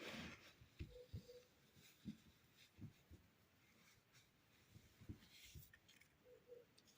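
Faint crumbly scraping and scattered soft taps of a knife cutting through kinetic sand, with a short crackle right at the start.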